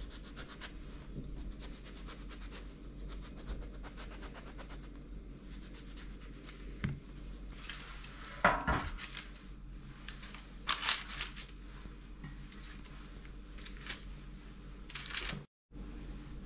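Kitchen knife cutting through eggplant in a quick run of short strokes, then several sharp knocks and clatters of kitchenware on a wooden table, the loudest about eight and a half seconds in. The sound cuts out for a moment near the end.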